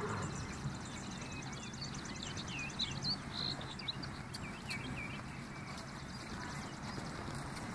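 Open-field ambience: small birds chirping, with a fast high trill in the first few seconds and short chirps after, over a steady outdoor background hiss. A few faint hoof strikes of the approaching horse come near the end.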